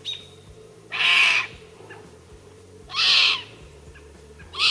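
Lynx kitten mewing: three high calls, each about half a second long, roughly two seconds apart.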